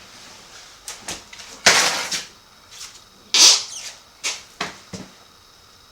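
Sharp knocks and clatter of metal parts being handled, with two short scraping noises about two and three and a half seconds in.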